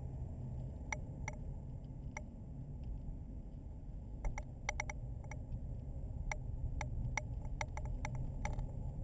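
Car driving slowly, heard inside the cabin: steady low road and engine rumble, with about fifteen irregular sharp ticks, mostly bunched in the second half. A faint steady high whine runs underneath.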